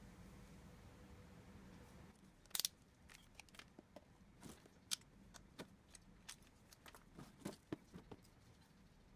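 Small handling clicks and taps from work on a PC power-supply connector and its wires, with one sharper click about two and a half seconds in and scattered lighter clicks after it. A faint low hum stops about two seconds in.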